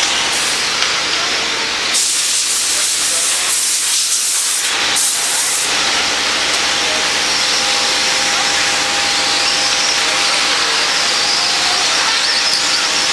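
Radio-controlled stadium trucks racing on a dirt track: a steady high hiss of motors and tyres, with several louder surges in the first six seconds.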